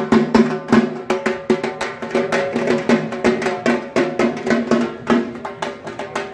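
Double-headed barrel drums (dhol) beaten with sticks in a fast, even marching rhythm of about four to five strokes a second, with a steady metallic ringing underneath.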